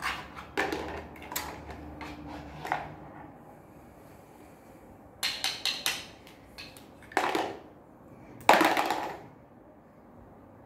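Hard plastic toy blocks and a plastic toy truck knocking and clacking together as a toddler handles them. There are a few knocks early, four quick clicks about five seconds in, and a louder, longer clatter around eight and a half seconds.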